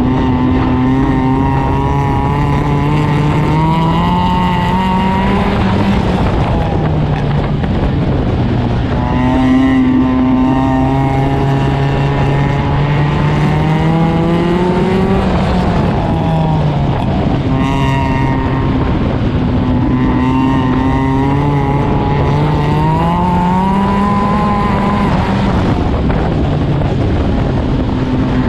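Four-cylinder engine of a Stinger 8 figure-8 race car at race pace. Three times the revs climb steadily for several seconds and then drop sharply, as it accelerates along the straights and lifts for the corners.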